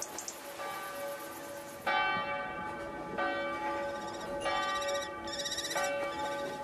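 Church bell tolling, a fresh stroke about every 1.3 seconds, each ringing on into the next.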